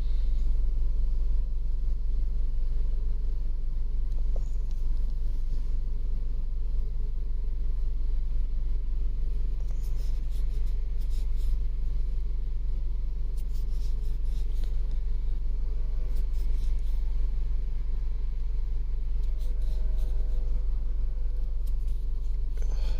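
Kia Sorento engine idling, a steady low rumble with no change, with a few faint light clicks about halfway through.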